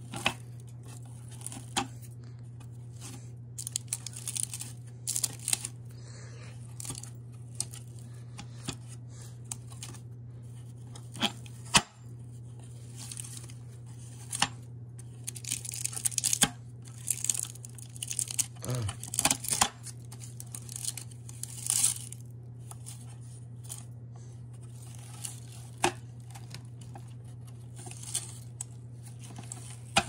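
Upright vacuum cleaner running over carpet with a steady low hum, picking up debris that crackles and rattles irregularly through the nozzle. There is one sharp crack about 12 seconds in, and a busy stretch of crackling from about 16 to 22 seconds.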